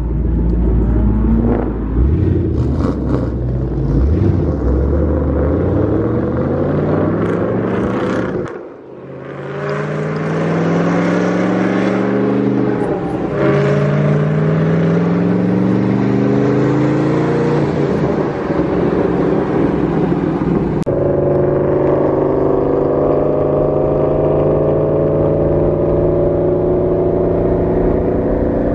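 Car engine pulling up through the gears in a series of rising revs, heard from inside a Ford Mustang's cabin, then holding a steady drone at cruising speed for the last several seconds.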